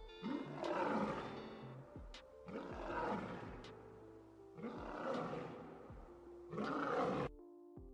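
An animal roaring, four loud calls about two seconds apart, over background music; the roars cut off suddenly near the end, leaving only the music.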